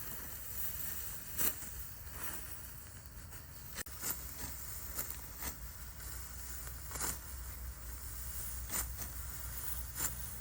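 Rice stalks being cut and handled by hand at harvest: irregular crisp rasps and snaps, with a sharp click about four seconds in, over a low steady rumble.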